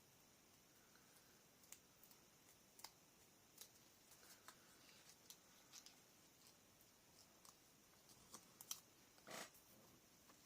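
Near silence, broken by faint scattered clicks and taps of small paper craft pieces being handled, and a brief soft rustle about nine seconds in.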